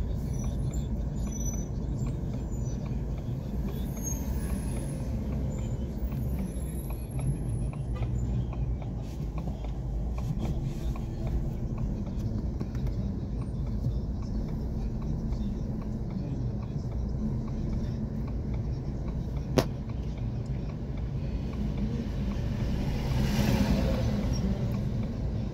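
Steady low road and engine rumble heard inside a car's cabin while driving slowly behind a truck. There is one sharp click a little over two-thirds of the way through, and a brief hiss near the end.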